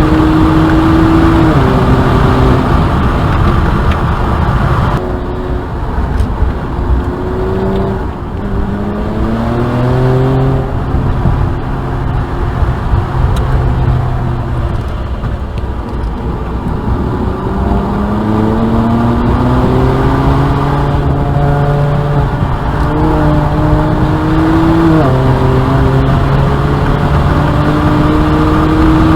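BMW 335i's N54 twin-turbo inline-six under hard acceleration on track, the engine pitch climbing in each gear and dropping in steps at the upshifts. Twice it falls away as the throttle is lifted, then climbs again.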